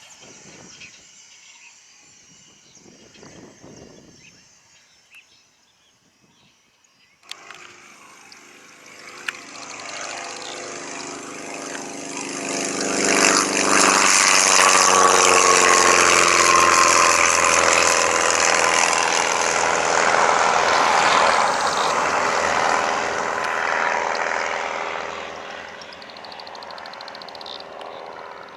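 Aircraft flying past: the engine sound starts suddenly about seven seconds in, grows loud, drops in pitch as the plane passes, then fades.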